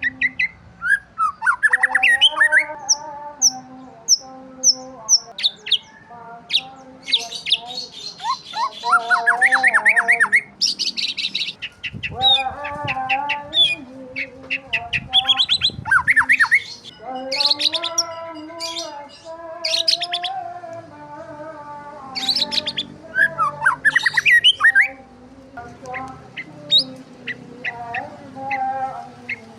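Several birds chirping and calling at once: quick rising chirps, rapid trills and some harsher squawks, over lower, drawn-out calls.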